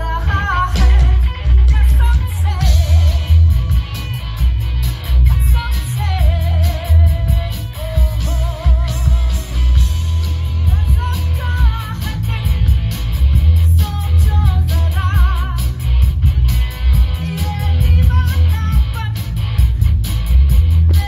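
Live rock band playing, with electric guitars, a drum kit and heavy bass under a woman singing a slow melody, her held notes wavering with vibrato.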